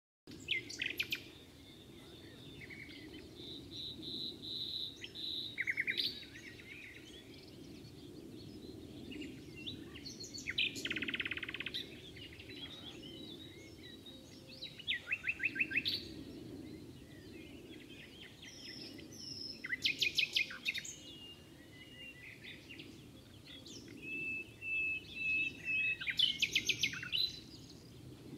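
Common nightingale singing in separate phrases a few seconds apart. The phrases mix fast runs of repeated notes, a buzzy rattle and long, clear whistled notes, over a low steady background rumble.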